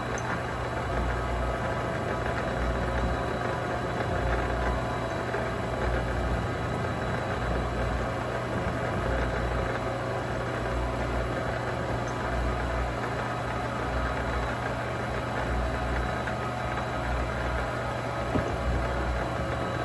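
Vevor MX400 mini lathe running steadily at speed, its motor and drive humming with a slow throb in the low end, while a center drill in the tailstock chuck works into the end of the spinning workpiece to cut a center hole. A short knock near the end.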